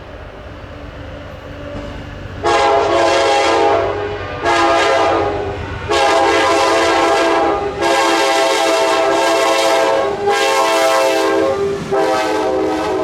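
Amtrak locomotive's multi-chime air horn sounded in a run of six blasts of varying length, some long and some short, starting about two and a half seconds in. Before the horn, the rumble of the approaching train grows louder.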